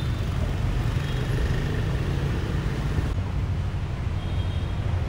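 Steady road and traffic noise heard from the open top deck of a moving double-decker bus: a continuous low rumble of the bus and passing cars and motorbikes.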